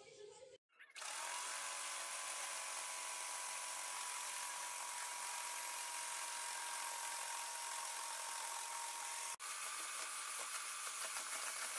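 Electric hand mixer running at a steady speed, its beaters whisking flour into thick cake batter. The motor whine starts about a second in and holds one pitch, with a very short break near the end.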